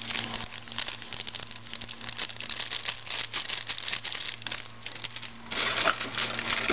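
Thin plastic seasoning packet crinkling and crackling as it is shaken and squeezed empty over a pot. The rustling gets louder and denser near the end.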